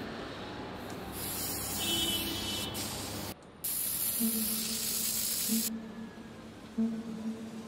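Aerosol spray-paint can hissing in two long sprays of about two seconds each, with a short break between them.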